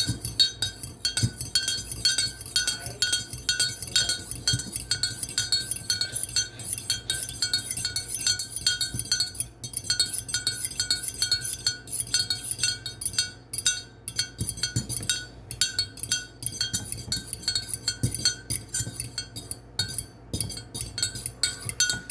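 Metal utensil stirring tea in a mug, clinking against the sides in a rapid, steady rhythm of a few strikes a second.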